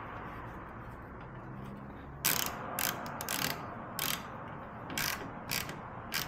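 Hand ratchet tightening a bolt into a rivet nut that holds the door panel. From about two seconds in, its pawl clicks in a string of short rattling strokes.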